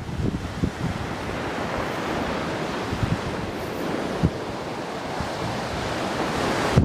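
Sea surf breaking against the rocky shore below, a steady wash of noise, with wind buffeting the microphone in occasional low thumps.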